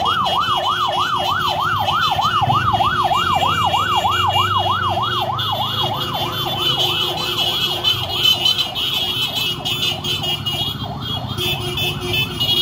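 An electronic vehicle siren on a fast yelp, rising and falling about three to four times a second, growing fainter from about halfway through as it moves off. Beneath it runs the steady sound of motorcycle and tricycle engines passing at parade pace.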